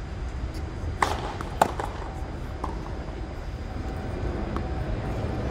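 Tennis ball being hit on a hard court during a rally: two sharp pops just over half a second apart about a second in, the second the loudest, then a few fainter ball ticks. A steady low rumble runs underneath.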